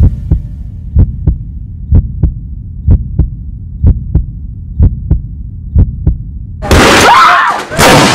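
Low heartbeat-like thumps in pairs, about one pair a second, over a low hum. About seven seconds in, a loud blast as a propane-filled microwave oven explodes, followed by a second loud burst.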